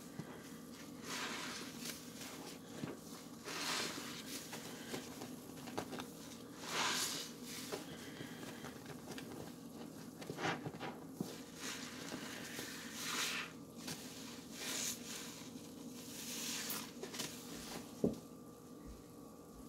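Wet, soapy sponges being squeezed in pine-cleaner suds: about eight squishing, splashing bursts a second or two apart. A sharp knock near the end, over a steady low hum.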